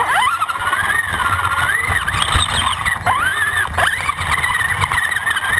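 Electric motor and gear drivetrain of an Axial AX10 RC rock crawler whining, the pitch sweeping up and down with each touch of the throttle, over a rumble and knocks from the chassis and tyres working over rock. Heard close up from a camera bolted to the truck's frame.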